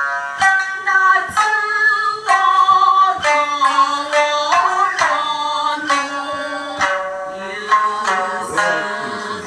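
Shamisen plucked in sharp strokes under a woman singing long held, sliding notes: traditional Japanese dance accompaniment.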